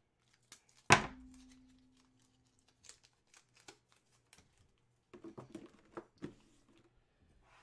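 Boxes and packaging being handled on a table: one sharp knock about a second in with a brief low ring after it, then small clicks and soft rustling and crinkling around five to six seconds in.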